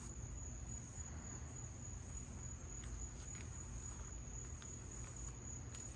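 Crickets trilling in one steady high tone, over a low steady rumble.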